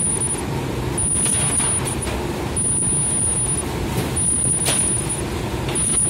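Ultrasonic food-cutting machine running: a high-pitched whine switches on for about a second, four times, each time the ultrasonic blade is energised for a cut, over a steady machinery hum. A sharp click comes near the end.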